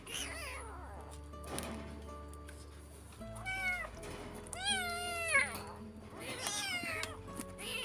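A young, starving kitten mewing over and over as it is fed, about six high calls with the longest and loudest about five seconds in.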